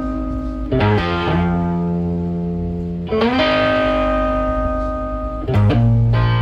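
Background music: sustained electric guitar chords, changing three times.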